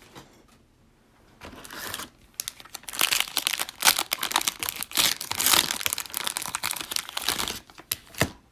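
Plastic cello-pack wrapper of 2020 Prizm football cards crinkling as it is torn open. Faint at first, then a dense run of crinkling from about three seconds in, with a single sharp tap near the end.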